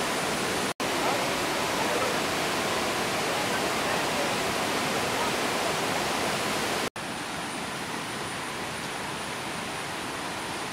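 Steady rushing roar of a river in monsoon flood. It breaks off for an instant about a second in and again near seven seconds, and is a little quieter after the second break.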